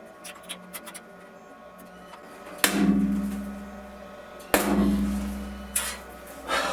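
A few light clicks, then four sharp knocks on steel, the first two each followed by a low ringing hum that fades over about a second and a half, as the struck metal resonates inside the steel tank of the bunker.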